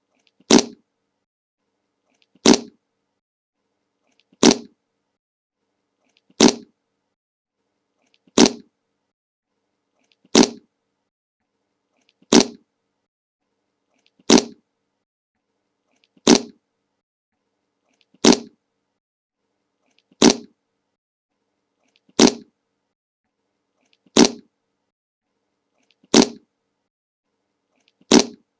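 A short fart sound effect, the same clip looped: one brief fart about every two seconds, each identical, with silence between.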